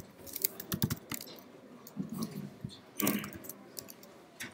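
Computer keyboard keys tapped in scattered clicks: a quick run in the first second, then more taps around two and three seconds in.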